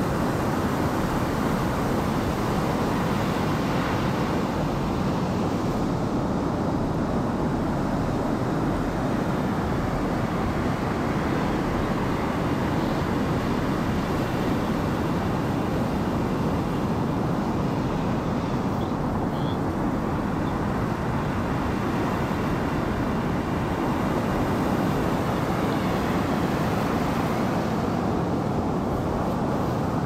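Motorboat engine running with a steady low rumble that does not rise or fall. A brief faint high chirp sounds about two-thirds of the way through.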